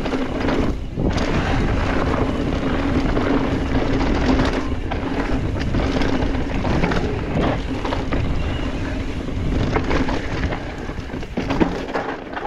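Mountain bike riding a rocky dirt trail, its tyres and frame rattling over the rocks with many short knocks. A steady hum and heavy wind noise on the camera's microphone run under it.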